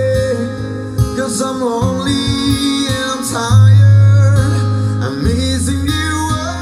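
A song with singing and guitar played loud through a PA system, a PS TT-12M 12-inch top speaker with a PS SUB905s 15-inch subwoofer, with heavy sustained bass notes that swell strongest about halfway through.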